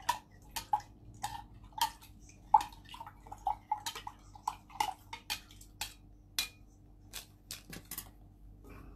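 A metal stirrer clinking against the inside of a stemmed wine glass as a drink is stirred: quick irregular taps, about two a second, each with a short glassy ring, stopping about a second before the end.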